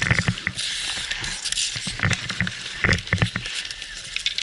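Hockey skates scraping and carving on outdoor ice, with a longer scraping hiss about a second in, mixed with sharp clicks and knocks of hockey sticks and puck.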